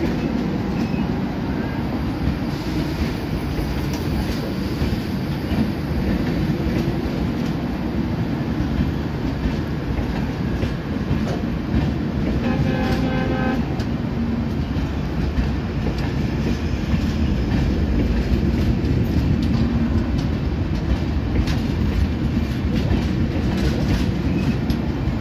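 Indian Railways LHB passenger coaches rolling past, a steady rumble with wheels clicking over rail joints, growing a little louder in the second half. A short horn sounds about halfway through.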